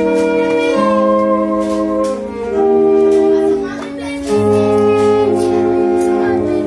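Alto and tenor saxophones playing a slow hymn in harmony, long held notes moving together from chord to chord.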